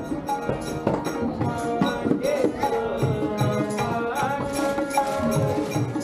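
Music with a steady beat of percussive strokes under a gliding melody line.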